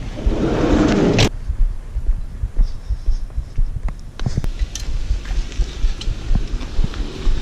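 Wind buffeting the microphone in a low, uneven thumping rumble, with a short rush of noise that cuts off sharply about a second in and a few scattered clicks and knocks.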